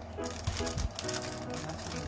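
Background music with a simple melody, over crinkling plastic packaging and a few sharp clicks as a toy pot is unwrapped by hand.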